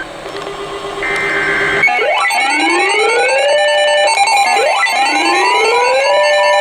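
Emergency alert broadcast tones: a brief stretch of steady electronic data tones, then from about two seconds in a synthesized siren that rises in pitch and levels off, repeating about every two and a half seconds over steady pulsing beeps.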